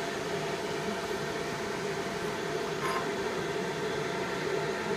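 Steady hum of a 20 W mini laser marking machine running idle, with a faint click about three seconds in.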